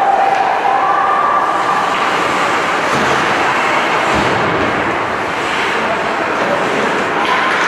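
Ice-rink crowd noise during a hockey game: a steady din of spectators' and players' voices, with a held shout about a second in.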